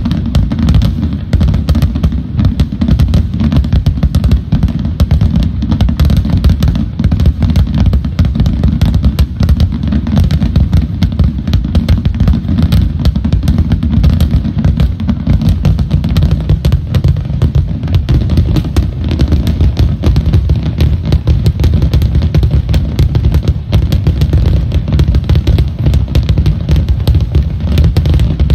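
Dense barrage of aerial firework shells bursting in rapid, overlapping succession: a loud, near-continuous rumble of booms with crackling.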